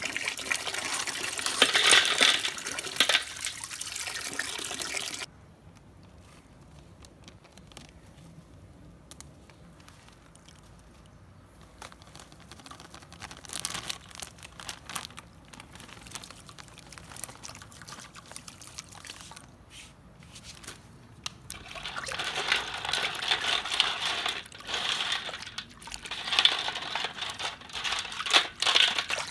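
Water or another liquid running and splashing, with a quieter stretch of scattered clicks and knocks in the middle before the liquid sound returns.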